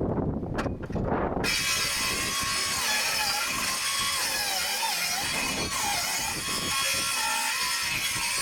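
Ferrex 18 V cordless circular saw cutting through timber. Its motor whine dips and recovers in pitch as the blade works through the wood. The cutting sound starts abruptly about a second and a half in, after a low rumble.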